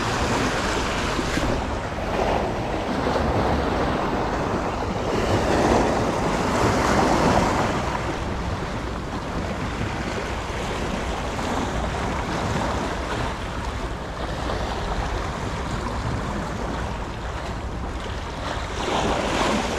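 Sea surf washing onto the shore with strong wind on the microphone, a steady rush of noise that swells and eases every few seconds.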